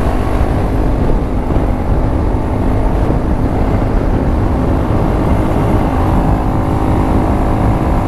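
Hero Impulse motorcycle fitted with a Karizma engine running steadily while being ridden, its engine note under a dense rush of noise.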